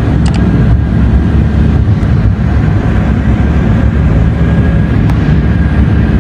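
Wind buffeting a phone's microphone: a loud, steady rumble without any tone.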